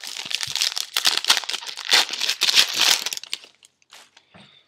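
A 2011 Upper Deck Football trading-card pack wrapper being torn open and crinkled by hand: a dense crackling for about three seconds that then dies down to a few small rustles.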